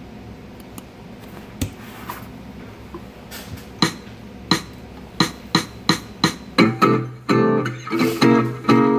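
Guitar backing track starting up: a few sharp plucked notes on an even beat, about one every two-thirds of a second, then fuller guitar chords joining at the same beat about two-thirds of the way in.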